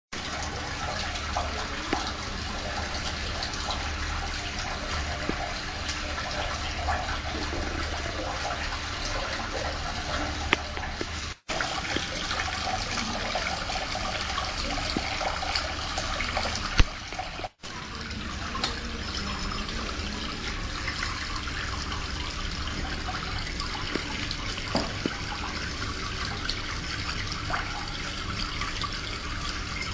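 Water spraying and streaming steadily over an ACTAtek biometric access terminal in a water test of its IP65 rating. The sound cuts out briefly twice in the middle, with a sharp click just before the second break.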